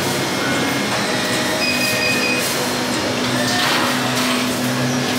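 Steady mechanical whir of drink-shop machinery, with a short high beep about two seconds in.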